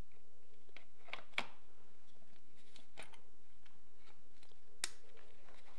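A few separate small clicks of a quick-release red-dot sight mount being fitted and locked onto a rifle's rail, the sharpest about a second and a half in.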